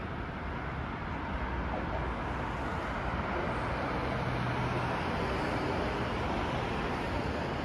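Steady rumble of road traffic with a low hum, swelling a little and easing off again.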